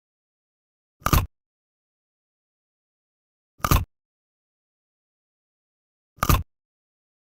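Bone-cracking bite sound effect: a short, sharp crunch played three times, about two and a half seconds apart, with silence between.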